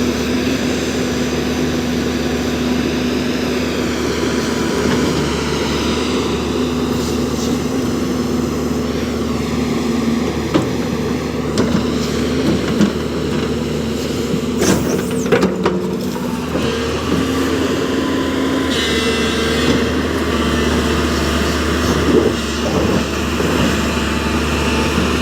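JCB backhoe loader's diesel engine running steadily while it works, with a whine that rises and falls in pitch and a few sharp clanks about fifteen seconds in.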